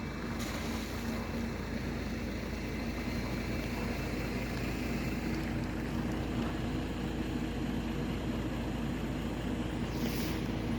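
Electric tram running slowly, a steady motor hum with several low tones that grows slightly louder, with a short hiss near the end.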